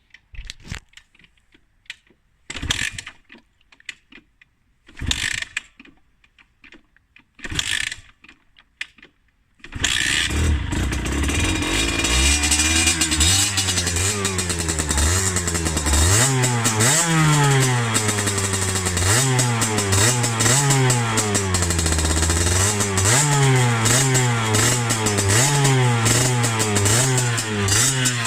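50cc Beta two-stroke motorcycle engine with a Giannelli exhaust: three short bursts of cranking, then it starts about ten seconds in and is revved up and down over and over.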